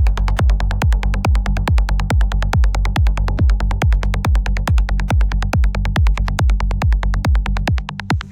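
Electronic dance music with a steady kick drum at about two beats a second, quick ticking percussion and a sustained bass.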